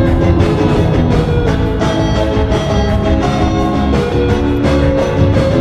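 Background music: a band track with a drum kit keeping a steady beat under guitar and held chords.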